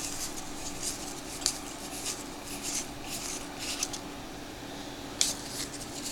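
Baseball trading cards being thumbed through by hand, the card stock sliding and flicking against itself in irregular soft scrapes with a couple of sharper ticks, over a faint steady hum.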